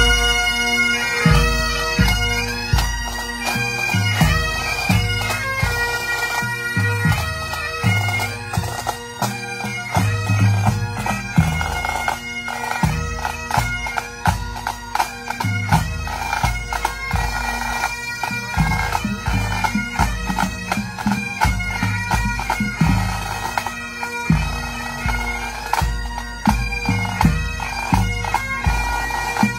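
Scottish pipe band playing: great Highland bagpipes sound a tune over their steady drones, with snare drums and a bass drum beating time.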